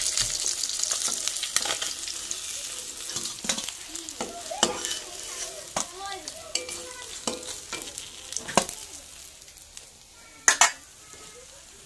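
Katla fish frying in oil in a kadai, the sizzle fading away, while a metal spatula scrapes and clinks against the pan as the fried pieces are lifted out. Two sharp knocks come near the end.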